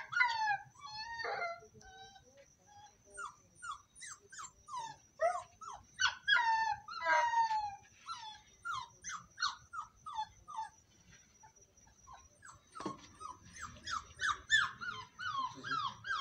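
Puppy whimpering and crying over and over in short, high, falling whines, the distress cries of a pup stranded on a roof. The cries pause briefly about two-thirds of the way through, then come faster near the end.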